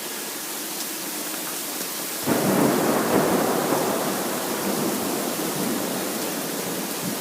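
Heavy rain falling in a steady hiss. About two seconds in, a roll of thunder breaks in suddenly, louder than the rain, and slowly dies away over the following seconds.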